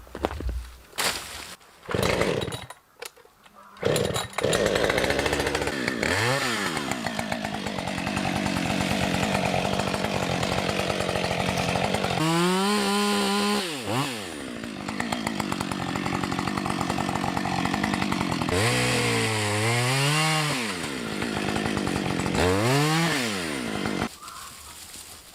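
Chainsaw running, revving up and down several times, and shut off near the end; a few short knocks and bursts come before it catches in the first few seconds.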